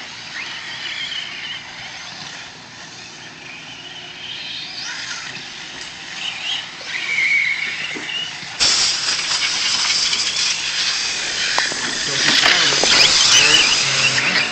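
Radio-controlled off-road race cars running on a dirt track: high-pitched motor whines rising and falling as the cars accelerate and brake through the corners. About two-thirds of the way in the sound jumps suddenly louder and rougher as cars run close by.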